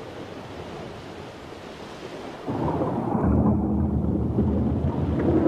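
A deep, low rumble that swells suddenly about two and a half seconds in, after a stretch of faint hiss.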